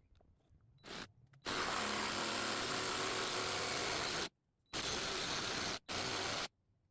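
A power tool running in three bursts that start and stop abruptly: a long run of nearly three seconds, then two shorter ones.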